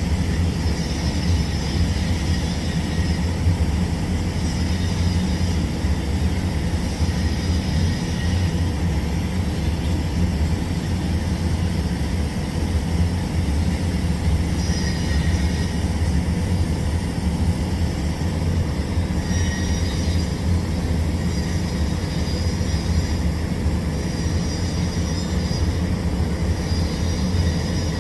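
Steady low machine hum with a faint hiss from welding equipment running during TIG welding of a pipe root pass.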